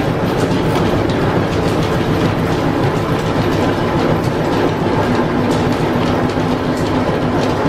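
Belt-driven 1925 American 18-inch engine lathe running under line-shaft power: a steady, loud mechanical clatter of gears and flat belts with frequent clicks. A steady hum joins about five seconds in.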